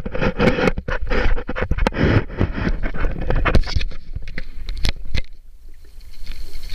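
Handling noise on the camera itself: scraping, rubbing and many sharp clicks as it is moved and tilted. The noise is dense for about the first four seconds, then thins to scattered clicks.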